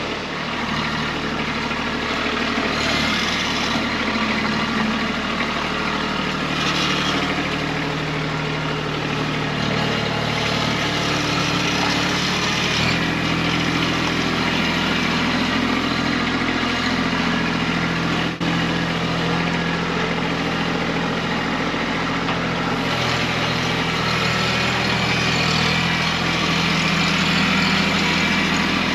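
Kubota B2301 compact tractor's three-cylinder diesel engine running steadily while the backhoe is worked. The engine note shifts to a new pitch about halfway through, and stretches of higher hiss come and go on top of it.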